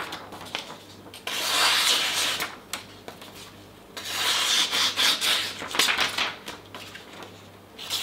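A freshly sharpened chef's knife slicing down through a hand-held sheet of paper: two long slicing strokes of a second or more each, with paper rustling between them. This is the paper test of the edge after it has been refined on a finer water stone.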